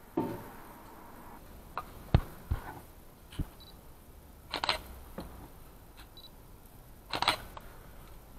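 A scattering of short, sharp clicks and knocks at irregular intervals over a quiet background, the sharpest a little over two seconds in and another cluster about seven seconds in.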